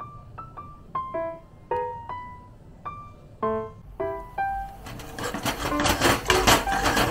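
Light piano background music, one note at a time. About five seconds in, oil starts sizzling and crackling in a frying pan of chopped garlic, louder than the music.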